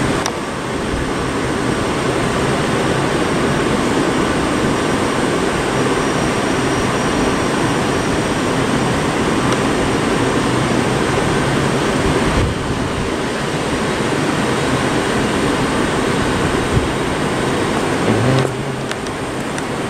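Steady, even rumble and hiss of electric trains in a large station train shed, with a Southern electric multiple unit slowly approaching the platform.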